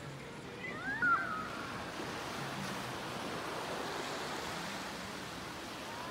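Small surf washing onto a sandy beach, a steady hiss. About a second in, a short high call rises in pitch and stands out briefly above it.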